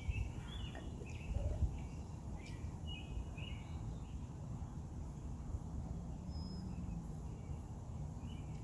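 Outdoor background noise: a steady low rumble, with a few short, faint bird chirps in the first half.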